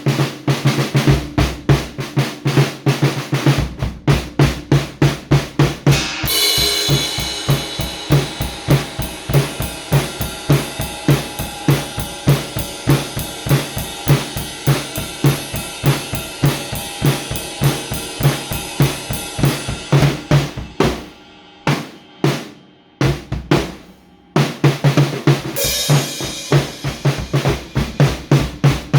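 Drum kit played fast and steadily, bass drum and snare strikes in a dense rhythm. A cymbal crash about six seconds in rings on for a long while, the playing thins to a few sparse hits a little after twenty seconds, then another crash comes near the end.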